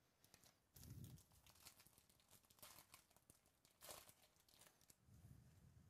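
Faint crinkling and ripping of a foil trading-card pack wrapper as it is torn open by hand, with soft handling bumps about a second in and again near the end.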